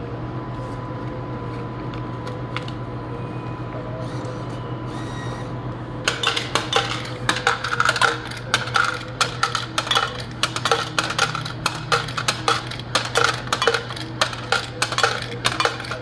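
Steady hum of a vending machine, then from about six seconds in a long run of coins, many of them dimes, clinking and rattling into the machine's coin return.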